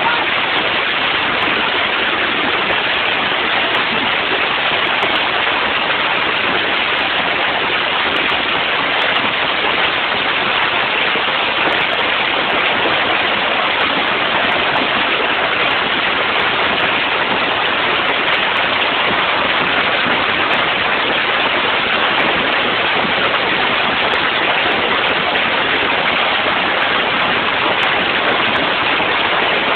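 A heavy hail storm with rain pelting pavement and parked cars: a dense, steady, loud clatter and hiss of hailstones that does not let up.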